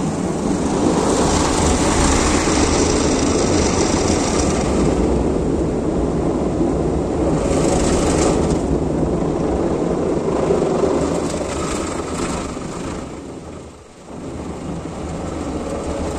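Automatic car wash's rotating brushes and water spray working over the car's windows, heard from inside the cabin: a loud, steady rush over a low machine drone. The noise drops away briefly about three-quarters of the way through, then comes back.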